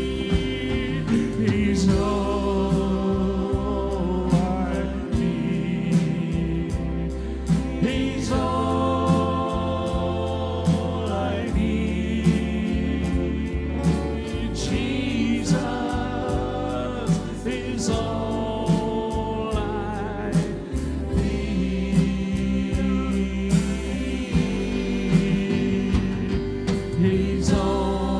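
Live gospel worship band playing: singing over acoustic guitar, keyboard and a drum kit, with steady drum beats.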